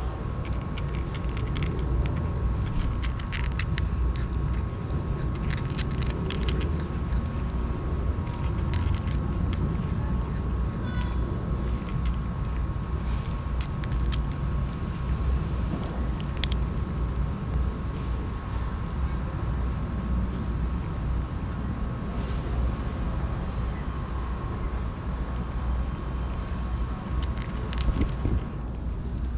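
Cat eating from a plastic plate right at the microphone: quick clicks of chewing and lapping, thickest in the first several seconds, over a steady low outdoor rumble.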